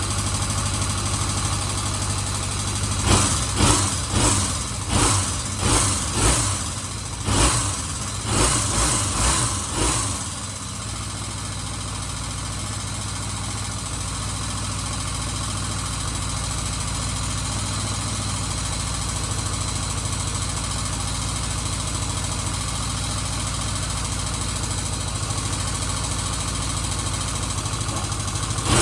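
1977 Kawasaki Z400 parallel-twin engine idling while warming up, with about ten quick throttle blips in the first ten seconds before it settles back to a steady idle. Its carburetors have just been refitted to cure vacuum leaks, and it runs okay.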